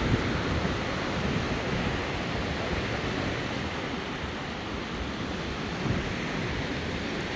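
Surf of a stormy sea rushing steadily onto the shore, with wind rumbling on the microphone.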